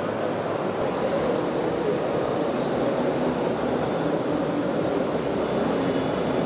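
RC model trucks and construction machines running, their engine sound modules giving a steady drone. A faint high whine comes in about a second in.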